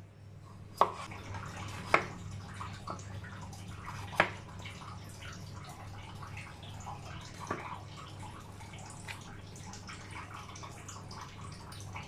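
Chef's knife cutting through a potato and a banana onto a plastic cutting board: four sharp knocks of the blade hitting the board, at about one, two, four and seven and a half seconds, with soft cutting and handling ticks between, over a steady low hum.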